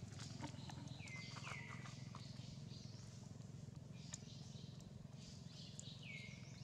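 Faint high-pitched animal calls, each a quick downward swoop that levels off into a short held note. Two come in quick succession about a second in and one more near the end, over a low steady background with scattered light ticks.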